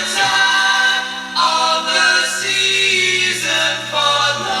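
Music played through DALI Spektor 2 loudspeakers: several voices singing long, held harmonised chords in a choir-like way, with a deep sustained note joining about two and a half seconds in.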